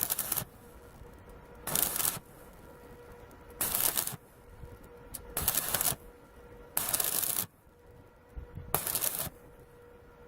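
Crackling arc of a Suzukid IMAX120 semi-automatic wire welder laying short stitch welds: six bursts, each under a second, about every two seconds, with a faint steady hum between them.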